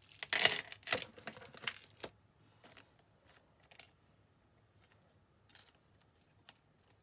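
Metal jewellery chain and findings clinking and jingling as they are handled, busiest in the first two seconds, then a few scattered light clicks.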